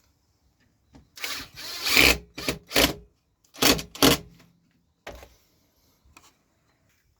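A power tool working wood in short bursts: one of about a second, then four or five shorter ones, with near silence between them.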